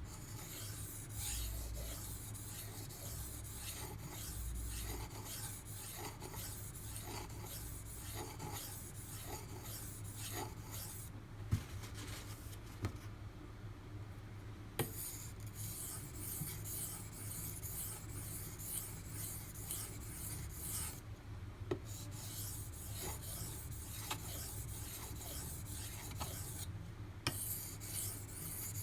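D2 steel knife blade being stroked back and forth on a whetstone by hand, a repeated rasping scrape with a few short pauses between sets of strokes. A steady low hum runs underneath.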